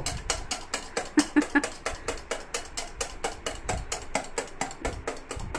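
Eggs and oil being beaten to a foam by hand in a steel bowl: a utensil clicks against the bowl in a fast, even rhythm, about six strokes a second.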